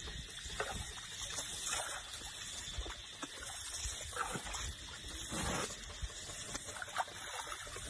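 Small splashes and dribbling water as a baby Asian elephant dips and flicks its trunk in shallow water.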